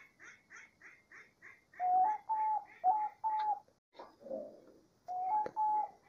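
Diamond dove cooing: a run of four short, level coos about two seconds in, then two more near the end, over a faint quick series of short higher notes at about three a second.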